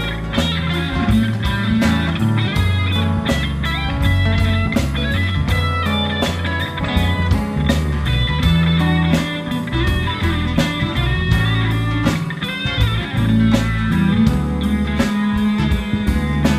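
Live band playing, with an electric guitar taking a solo over bass and a steady drum beat.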